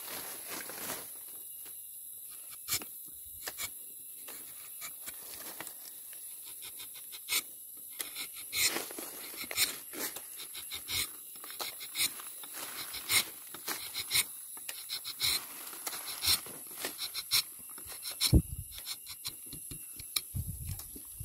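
Rubber-tapping knife shaving a thin strip of bark along the tapping cut of a rubber tree: a run of short scraping, ticking strokes, sparse at first and coming thick and fast from about a third of the way in. A dull knock near the end is the loudest sound.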